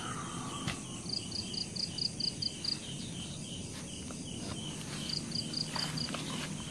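Crickets chirping: a run of about eight quick, even high pulses, a second run of five near the end, and a fainter repeating chirp under a steady high insect hiss.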